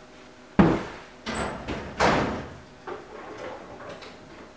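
A few knocks and bangs, with a sharp knock about half a second in, the loudest bang at about two seconds and smaller knocks after, like a door or drawer being opened and shut and things being handled.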